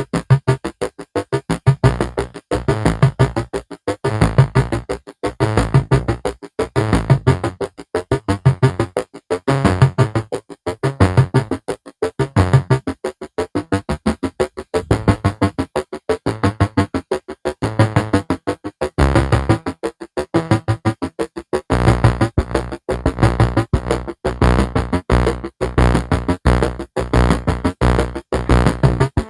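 Synthesizer music of rapid, short repeated notes over a pulsing bass, the bass growing heavier about two-thirds of the way in.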